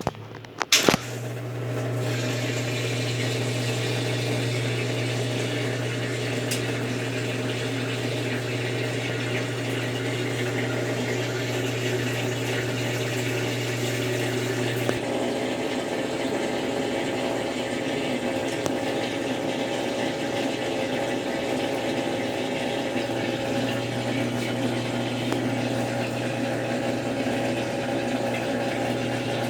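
Consul Facilite 10 kg washing machine in its wash stage: a click about a second in, then a steady rush of water with a constant electric hum, which weakens about halfway through and comes back later.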